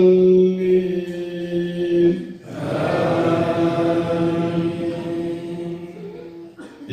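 An imam chanting Quran recitation in long, held melodic notes. His voice breaks off about two and a half seconds in, and he starts a new long phrase that fades away near the end.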